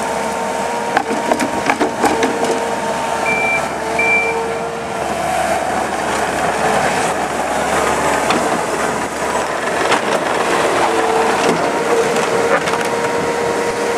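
Takeuchi TL150 tracked skid steer loader running with its 97-horsepower diesel held at a steady high throttle, with scattered knocks and clanks in the first couple of seconds. Two short beeps sound a little after three seconds in and again at four seconds.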